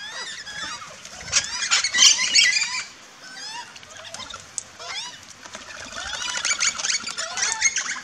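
A flock of parrots chattering in many short, high-pitched screeches, swelling into two loud, dense bursts about a second and a half in and again from about six seconds.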